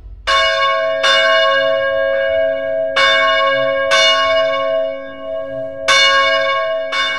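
Church bells ringing, struck about seven times at uneven intervals, each stroke ringing on and overlapping the next.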